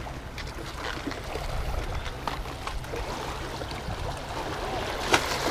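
Water lapping and trickling against a small boat's hull at sea, over a steady low rumble, with scattered faint knocks and one sharp click about five seconds in.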